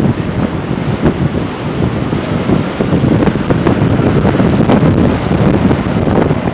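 Strong wind buffeting the microphone in a low, gusty rumble, over heavy Atlantic storm surf breaking on the beach ahead of a hurricane.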